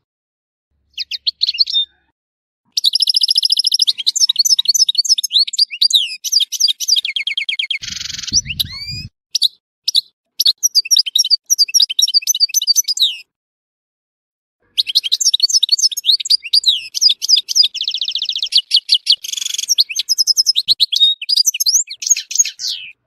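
European goldfinch singing: fast, high twittering phrases with rapid trills and buzzy notes in two long runs, broken by a short pause a little past halfway. A brief harsh, rasping burst comes about eight seconds in.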